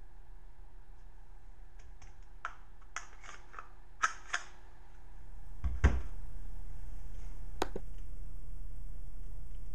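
Small sharp clicks and taps from handling a Smith & Wesson Shield 9mm pistol, then a heavier thump about six seconds in and one more sharp click a little later.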